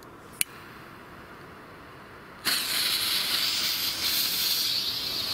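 Ignition head of a Lesli China Böller D firecracker, struck with its cap: a short click about half a second in, then about two and a half seconds in it catches and burns with a loud, steady hiss.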